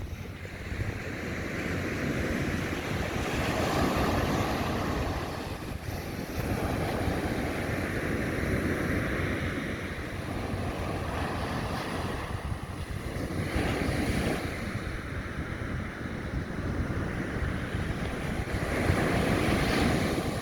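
Sea waves breaking and washing up a sandy beach, swelling and fading in slow successive surges a few seconds apart, with wind rumbling on the microphone.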